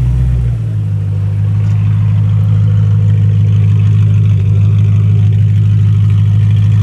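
BMW E92 M3's V8 idling steadily through a full IPE valved exhaust, a deep, even drone from the quad tailpipes.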